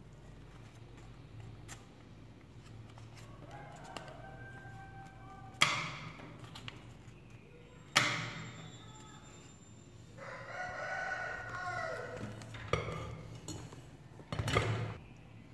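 Animal calls: a call of about two seconds, about ten seconds in, that falls in pitch at its end. Before it come two loud, sharp sounds with a short dying tail, about six and eight seconds in, and there is a short loud burst near the end.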